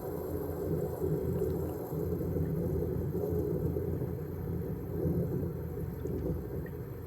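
1977 General Electric Superthrust 10,500 BTU window air conditioner running, a steady low rush of moving air.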